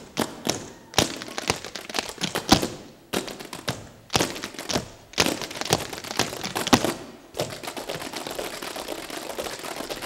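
Group tap break with no music: tap shoes striking the stage floor in irregular clusters of sharp taps and louder stamps. About seven and a half seconds in, this turns into a fast, continuous patter of taps.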